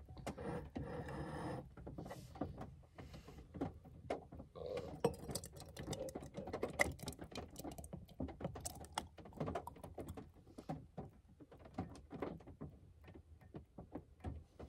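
Thick hot cranberry sauce being poured and scraped from an enamel saucepan into a glass mason jar, with irregular small clicks and taps of the pan against the jar.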